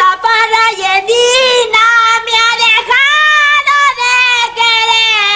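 High-pitched singing voice of a cartoon rat character, in a string of held, slightly sliding notes with short breaks between phrases.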